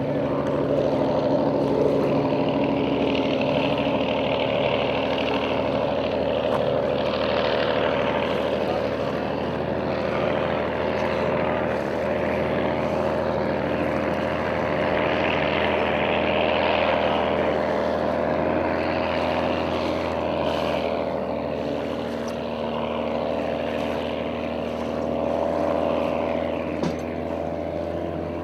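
Vintage racing hydroplane's engine running at speed, a steady drone that holds its pitch, swelling and easing a little in loudness.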